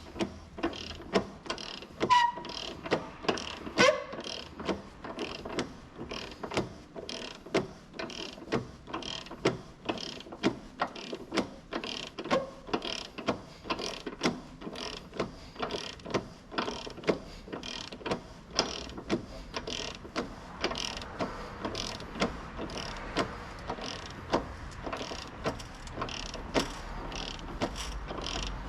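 Socket ratchet clicking steadily, about two clicks a second, as a bolt is run in or out, with a couple of short squeaks in the first few seconds.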